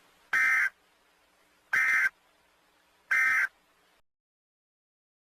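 Emergency Alert System end-of-message signal: three short, buzzy bursts of SAME digital data, each under half a second, about a second and a half apart.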